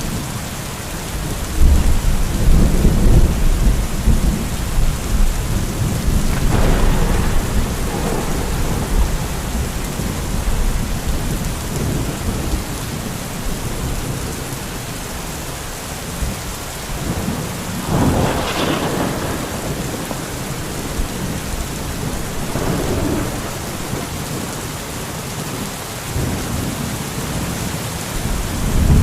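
Thunderstorm: steady rain with rolling thunder. A long low rumble begins about a second and a half in, sharper claps come around six and eighteen seconds, a lighter one comes a few seconds later, and the rumble builds again near the end.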